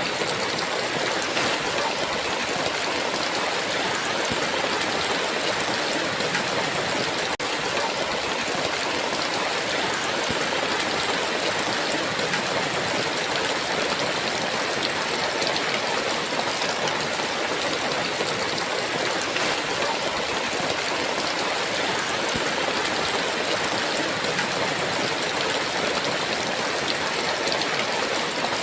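Heavy rain falling in a steady, dense hiss, with a momentary dropout about seven seconds in.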